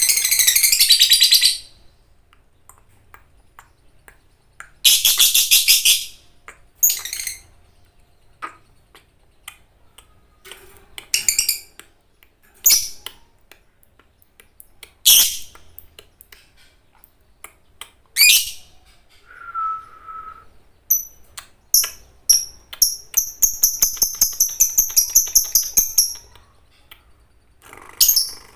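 Lovebird calling: harsh, shrill screeching bursts at the start and about five seconds in, scattered short sharp chirps, then a long, rapid chattering trill of repeated high notes near the end, the 'ngekek panjang' call of a fighter lovebird.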